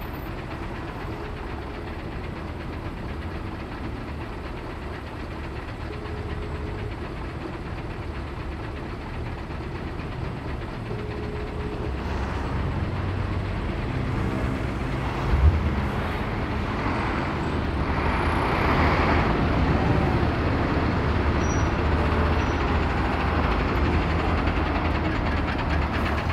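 Slow road traffic with heavy diesel engines running, growing louder over the second half as a KamAZ truck-mounted crane moves up close. A single short knock about fifteen seconds in.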